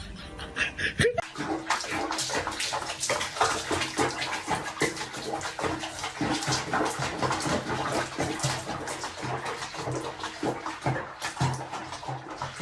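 Water splashing and sloshing in a tub or basin, with irregular splashes throughout.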